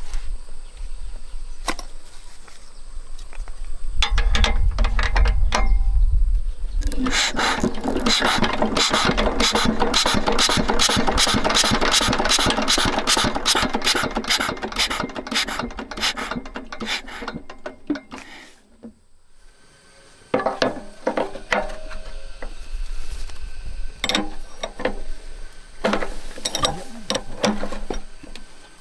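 Metal hand-work on a small diesel engine's fuel injection pump: a low rumble, then about ten seconds of fast, even mechanical clicking, and after a short pause scattered clinks of a spanner on the fittings.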